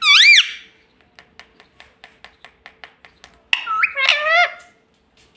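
A pet parrot gives a loud call that rises and falls in pitch, then a run of quick soft clicks, about six a second, then another loud call that slides down in pitch.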